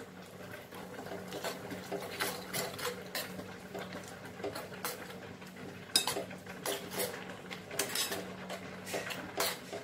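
A metal spoon stirring a thin tamarind-and-spice mixture in a small pan, clinking and scraping against the pan at irregular intervals. A steady low hum runs underneath.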